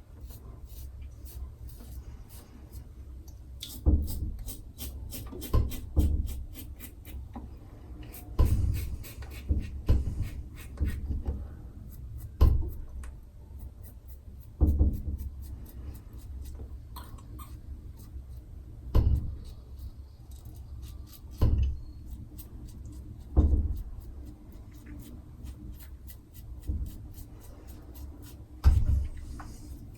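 A razor scraping through lathered stubble in short strokes, a fine crackle of whiskers being cut. About every two seconds there is a louder knock or rustle as the razor is moved or set against the skin.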